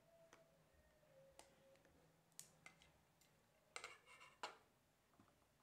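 Faint scattered clicks of metal camera parts being handled as a Leica M4-2's baseplate is unlocked and lifted off, with a louder quick cluster of clicks and clatter about four seconds in.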